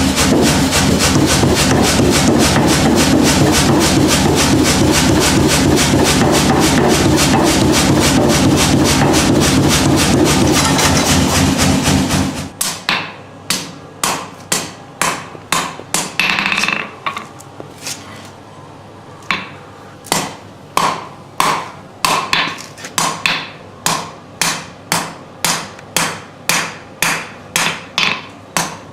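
A power hammer forges stainless steel bar with a fast, steady run of blows, which stops suddenly about twelve seconds in. Single hand-hammer blows on the hot steel and anvil follow, about one and a half a second, each with a short metallic ring.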